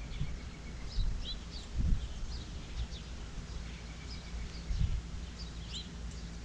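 Wind gusting over the microphone as an uneven low rumble that swells now and then, with birds chirping repeatedly in the background.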